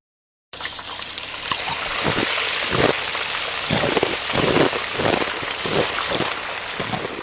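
Heavy monsoon rain pouring and splattering, a dense hiss with irregular louder splashes. It starts abruptly about half a second in.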